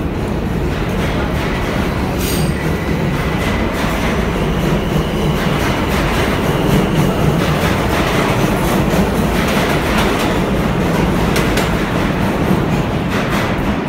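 New York City subway train running along the platform: a loud, steady rumble of wheels on the rails, with sharp clicks now and then.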